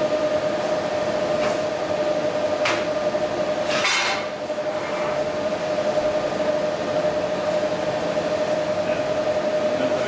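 Steady machine drone with a constant mid-pitched hum, over which come a few short metallic clanks, the loudest about four seconds in, as a long steel pipe is worked over stud-welded pins on a steel plate to bend them and test the welds.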